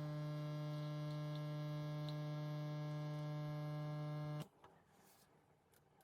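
illy Y3.2 capsule espresso machine's pump running with a steady, pitched hum, then cutting off suddenly about four and a half seconds in as the brew stops. A few faint ticks follow.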